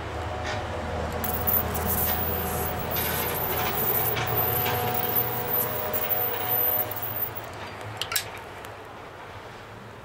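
Plazmatic Zippo-style plasma arc lighter buzzing with a high-pitched hiss for about six seconds as its electric arc is held to the foot of a cigar. A short click comes about eight seconds in.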